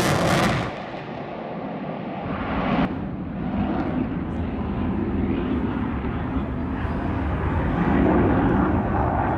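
Airplane engine noise at an airshow: a loud rush that cuts off sharply under a second in, then a steady low rumble of an aircraft in flight, with one sharp knock about three seconds in.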